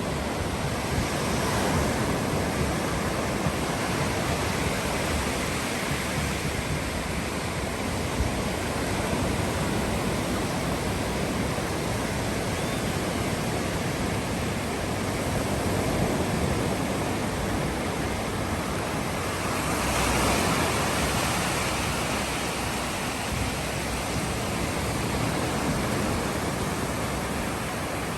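Ocean surf: waves breaking and washing in as a continuous rushing noise that swells and falls back every several seconds, loudest about twenty seconds in.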